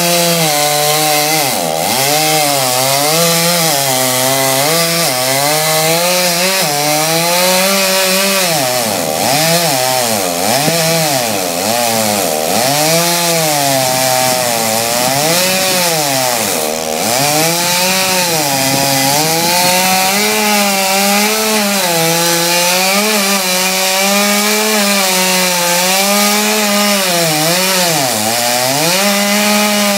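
Stihl chainsaw running loud throughout, its engine pitch repeatedly dipping and climbing again as it bogs in the cut and revs back up while sawing through wood.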